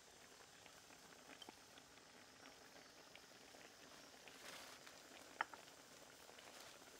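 Faint simmering of pork and vegetables in broth in a wok over a wood fire, with scattered small ticks and one sharp click about five and a half seconds in.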